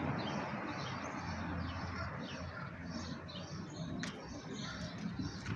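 Small bird chirping: short high chirps repeated about two to three times a second, over a steady low background noise.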